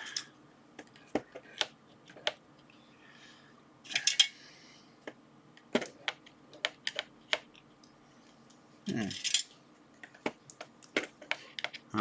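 Hand tools and brushes being handled and dropped into the slots of a grid tool holder: a run of scattered sharp clicks and light clatters, with a couple of brief scraping rustles about four seconds in and again near nine seconds.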